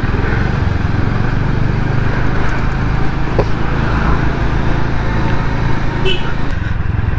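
Motor scooter engine running steadily at low town speed, with road and wind noise, heard from the rider's seat.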